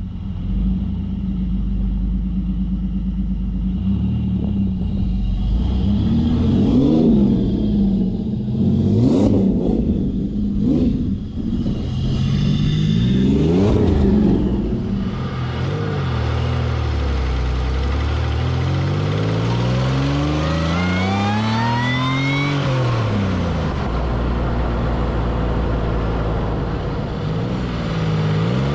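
Modified, forced-induction Pontiac Fiero engine idling, then blipped several times, then pulling with a long rise in pitch and a higher whine climbing with it, before dropping back to a steady note.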